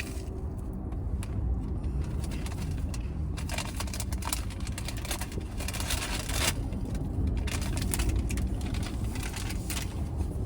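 Steady low rumble inside a car cabin, with scattered light clicks and rustles.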